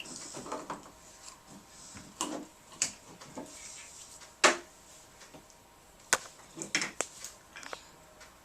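Light clicks and knocks of Play-Doh cups, lids and plastic pieces being handled and put away on a table, several sharp ones scattered through, with a little rustling.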